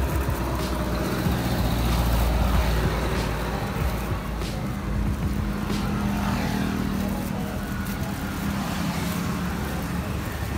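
Road traffic passing close by: a vehicle engine's low rumble, loudest in the first few seconds, followed by a steady engine hum for a few seconds in the middle.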